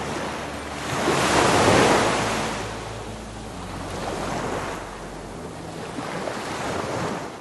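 Rushing ocean-surf sound effect, swelling about a second in, ebbing, then swelling twice more more softly and starting to fade near the end.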